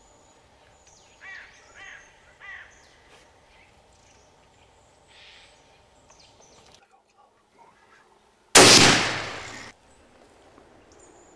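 A hunting rifle shot fired at a wild boar about eight and a half seconds in: sudden and loud, dying away over about a second. Earlier, a bird calls three times in quick succession.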